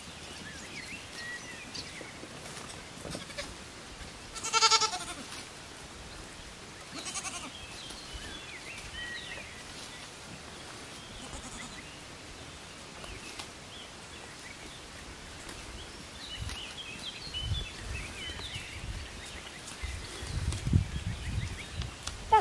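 A young goat bleats once, a short high-pitched call about four and a half seconds in, over faint bird chirps. Low rumbling noise comes in near the end.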